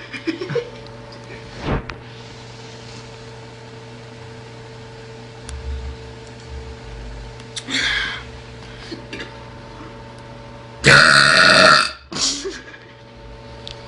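A young woman burps, with a short burp about eight seconds in and a long, loud one about eleven seconds in that lasts about a second.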